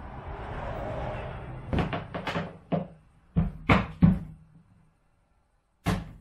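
Hollow knocks and clunks from a plastic dump-cart bed being handled and bolts being fitted into it. A soft rustle comes first, then a quick run of about eight knocks, and one more sharp knock near the end.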